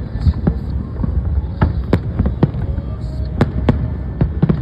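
Fireworks shells bursting: a quick, irregular run of sharp bangs, about ten in under five seconds, over a continuous low rumble.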